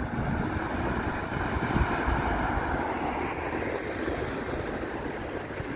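Road traffic noise from a vehicle passing on a wide city road, swelling about two seconds in and easing off, with wind rumbling on the microphone.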